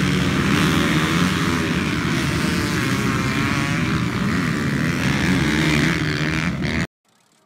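A pack of motocross dirt bikes at high revs together, a dense mass of many engines whose pitches rise and fall as the riders work the throttles through the turn. It cuts off abruptly near the end.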